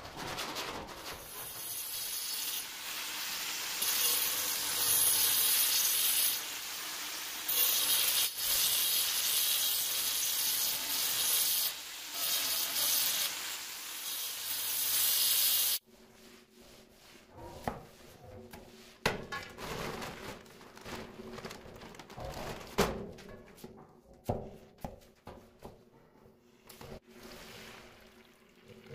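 Angle grinder with a sanding pad grinding the edge of a stone countertop slab, running loudly with a harsh, hissing whine for about sixteen seconds before it cuts off abruptly. After that come quieter irregular scrapes and knocks as wet mortar is worked in a plastic tub.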